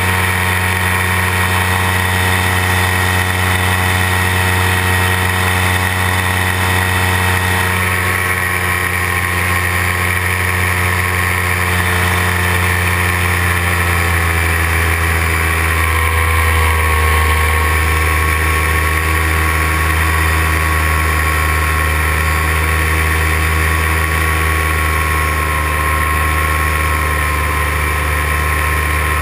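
Paramotor engine and propeller running steadily in flight, a loud continuous drone. The engine note shifts slightly about halfway through.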